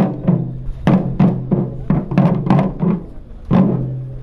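Festival drum beaten in a quick rhythm of about three strokes a second, each stroke ringing with a low hum; the strokes space out near the end.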